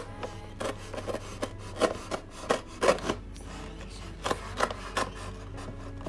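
Snap-off utility knife blade slicing through a paper envelope, in a series of short, irregular scraping strokes.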